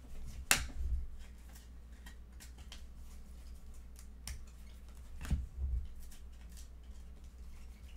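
Baseball trading cards being flipped through by hand: light flicks and slides of card against card, with a sharper snap about half a second in and another about five seconds in.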